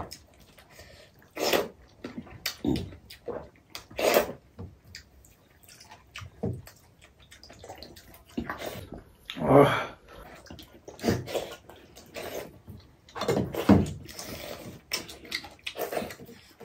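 Wet slurping and gulping of pakhala, rice soaked in water, drunk straight from steel bowls and eaten by hand, coming in irregular bursts every second or two, the loudest slurp a little after the middle.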